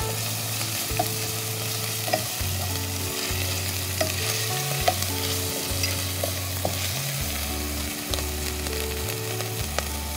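Chopped onions with garlic and ginger paste frying in oil in a pot, sizzling steadily. A wooden spatula stirs the mix and scrapes the pot, giving scattered sharp clicks.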